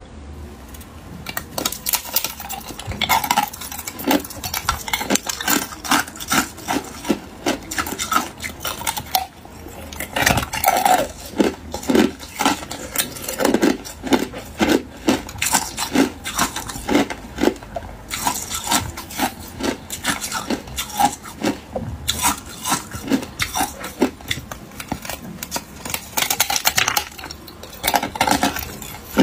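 Hard ice cubes being bitten and crunched, and clinking and grinding against each other as they are worked loose from a frozen cluster: a dense, uneven run of sharp cracks and clicks.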